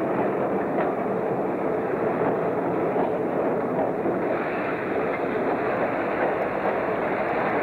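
Freight cars rolling along yard track: a steady rolling rumble with a couple of faint clicks from the wheels and couplers.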